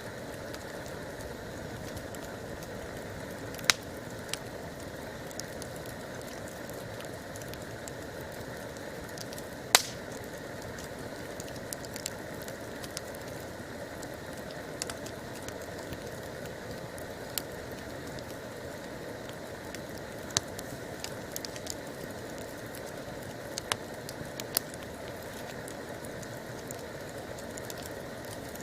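Wood campfire burning with a steady hiss and scattered sharp crackles and pops, two of them much louder, about four seconds in and just under ten seconds in.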